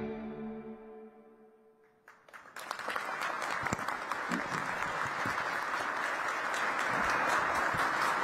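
The closing chord of background music fades away over about two seconds. Then a large audience starts applauding about two and a half seconds in and keeps clapping steadily, growing a little louder.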